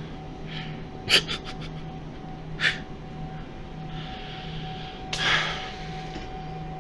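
A few clicks and rustles of a phone being handled close to the microphone, and a sharp breath through the nose about five seconds in, over a steady electrical hum.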